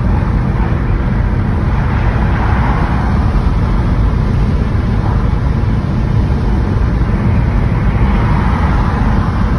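Loud, steady road and wind noise of a car driving at speed, heard from inside the car.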